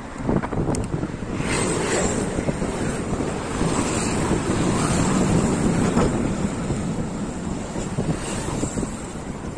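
Wind buffeting the microphone of a moving bicycle, a steady rushing noise that swells somewhat in the middle.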